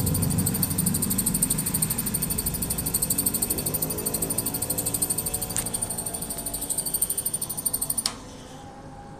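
Banknote counting machine running with a rapid, even, high-pitched fluttering rattle, cutting off abruptly about eight seconds in, followed by a couple of sharp clicks.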